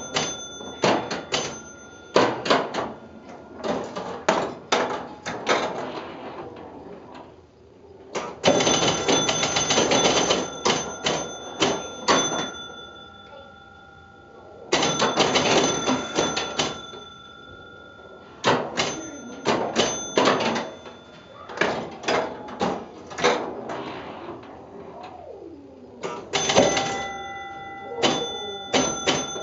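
1966 Gottlieb Cross Town electromechanical pinball machine in play: flippers, bumpers and relays clacking and score reels stepping in bursts of rapid clatter, with its scoring bells ringing on after many of the bursts and quieter moments between.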